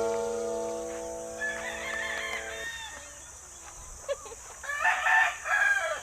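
A rooster crowing twice: a softer crow about a second and a half in and a louder one near the end, while the last chord of intro music fades out.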